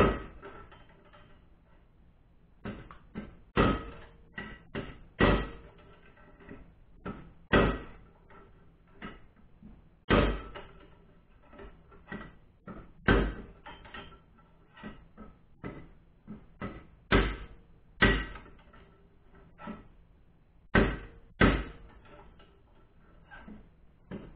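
Hammer blows on a length of threaded rod used as a drift, driving the old bearing race out of a Honda Valkyrie swing arm. The strikes come irregularly, about one a second, some much harder than others, each with a short metallic ring.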